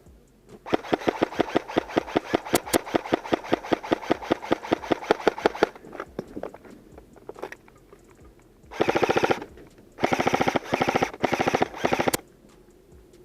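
Airsoft guns firing on full auto: a steady string of rapid shots lasting about five seconds, then a pause, then several short, faster bursts near the end.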